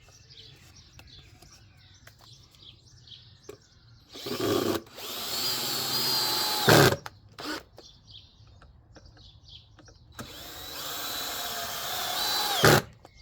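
Power drill driving screws: two runs of the motor whining under load, the first about four seconds in and the second about ten seconds in. Each run ends with a sharp knock as the screw seats.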